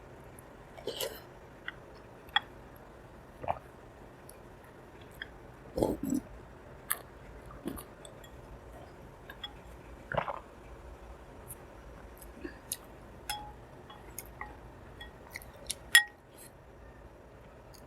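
Close-miked mouth sounds of someone eating soft Indian sweets: irregular wet chewing smacks and clicks, with the odd light clink.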